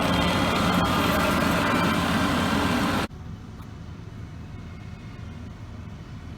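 Skid steer engine running steadily, with several steady whining tones over its low rumble. About three seconds in, it drops abruptly to a much quieter, low engine rumble.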